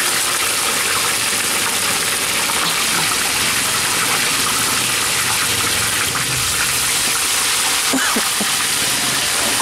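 Hot oil in a large kadai sizzling steadily as masala-coated fish pieces deep-fry.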